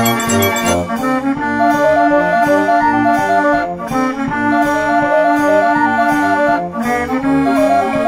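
Background music: held melody notes over a steady bass beat.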